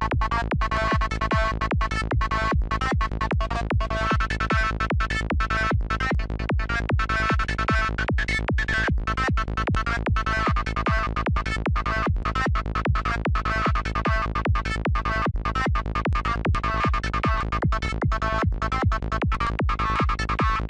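Dark, FM-like psytrance lead from the NI Massive software synthesizer playing a looped pattern at 150 BPM, chopped into short even pulses about two and a half times a second over a steady low end.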